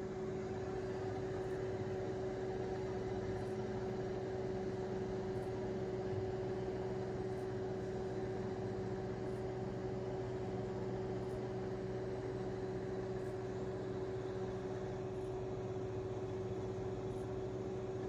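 GE Spacemaker II microwave oven running with a steady hum and one clear constant tone, heating butter on its turning tray.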